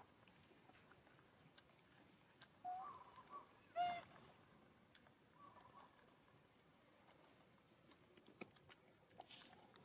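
Quiet background with a few short chirping calls, the loudest and sharpest about four seconds in, and a few faint clicks near the end.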